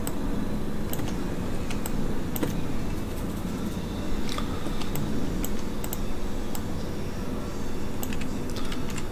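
Irregular clicks of a computer mouse and keyboard, roughly one a second, as the 3D software is operated. They sit over a steady low hum of room noise.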